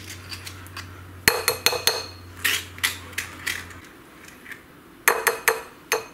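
A spoon scraping and clinking against a ceramic bowl while avocado flesh is scooped out of the skin. The clinks come in a quick cluster about a second in, a few single ones after that, and another cluster near the end.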